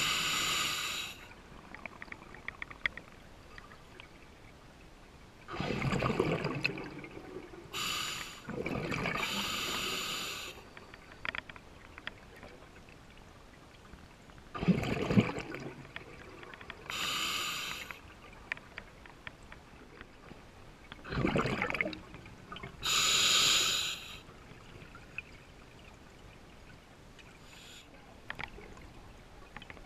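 Scuba diver breathing through an open-circuit regulator underwater: four slow breaths, each a hiss of air drawn through the demand valve followed about two seconds later by a burst of exhaled bubbles from the exhaust, with quiet between breaths.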